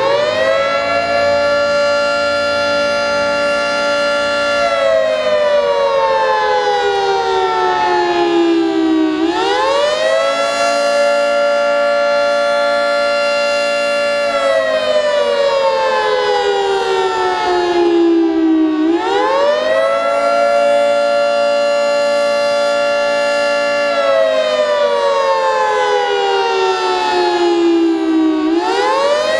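Federal Signal 3T22 three-tone outdoor warning siren sounding the attack (wail) signal. Its chord winds up quickly, holds for a few seconds, then slowly winds down, and this repeats about every nine or ten seconds, three times.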